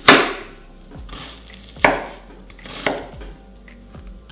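Kitchen knife chopping an onion on a wooden cutting board: three sharp knocks of the blade hitting the board, a second or two apart.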